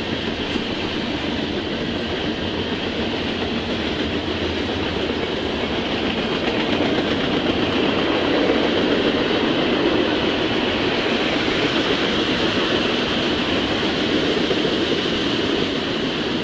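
Norfolk Southern freight train of tank cars and covered hoppers rolling past: steady wheel-on-rail noise and car rumble, a little louder about halfway through.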